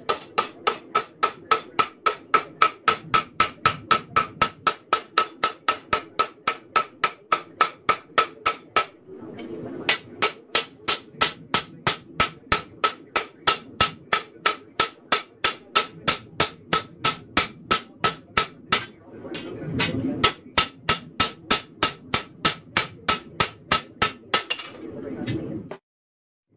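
Hand hammer striking hot 1084 high-carbon steel on an anvil to forge a knife blade: a steady run of blows, about three a second, each with a bright anvil ring. The hammering comes in three runs, broken by short pauses, and cuts off suddenly near the end.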